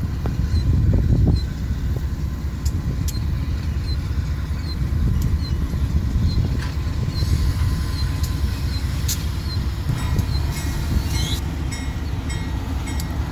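Diesel locomotive of a freight train rolling past: a steady, heavy low rumble with occasional sharp clicks.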